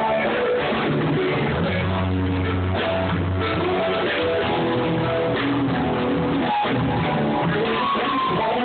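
Rock music led by guitars, in a muffled recording with poor sound quality.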